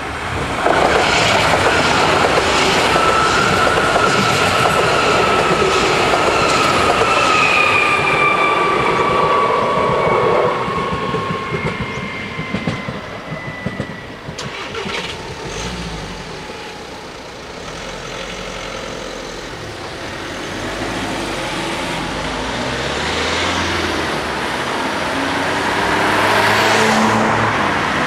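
DB Class 423 S-Bahn electric train passing over the level crossing: wheels clattering over the rails and the traction motors whining with a slowly falling pitch, until the train sound drops away about ten seconds in. After that, car engines run and pull away as traffic drives over the crossing, with a car passing close near the end.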